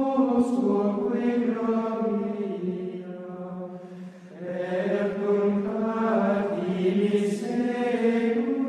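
Male voices singing plainchant in unison, slow held notes moving step by step, with a short pause for breath about four seconds in.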